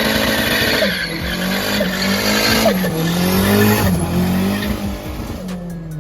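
Turbocharged Chevrolet Corsa doing a burnout: the engine is held at high revs, its pitch rising and dipping, over loud, continuous tyre squeal. It eases off in the last second.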